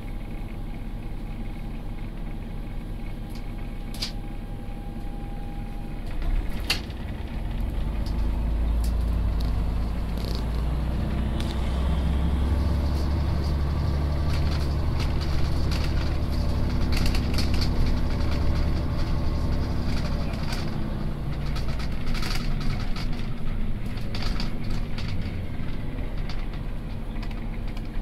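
A heavy vehicle's engine rumbling, likely a bus, amid street traffic noise. The low rumble swells about seven seconds in and eases after about twenty seconds. A couple of sharp clicks come early.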